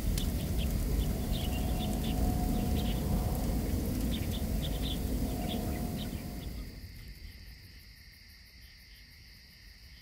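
Insects chirping in quick short calls over a low rumbling noise; the rumble fades out about two-thirds of the way through, leaving only a faint, steady high insect trill.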